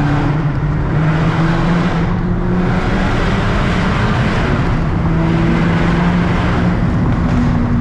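Volkswagen Mk6 Golf R's turbocharged four-cylinder engine and aftermarket turbo-back exhaust, heard from inside the car with the windows down as it drives under load. The engine note steps up in pitch a couple of times.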